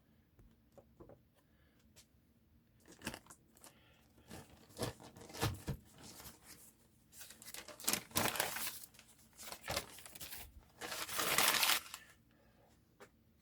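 Newspaper being torn by hand into strips and rustled: a series of rips and crinkles, the longest near the end.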